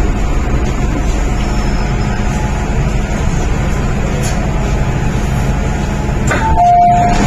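Inside an MTR M-Train electric train running along the station platform: steady rumble of motors and wheels. Near the end comes a two-note chime, a short higher tone then a longer lower one, the train's door signal at the platform.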